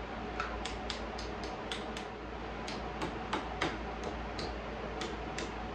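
Small hammer tapping lightly and irregularly on a knife handle clamped in a bench vise, about fifteen sharp metallic taps with a brief pause partway through, setting the copper handle pins through the scales.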